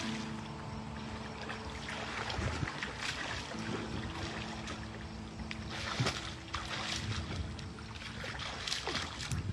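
Pool water splashing and sloshing as a person swims through it, with irregular splashes from the strokes.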